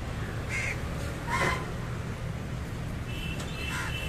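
Crows cawing a few short times, the loudest call about a second and a half in, over a steady low rumble.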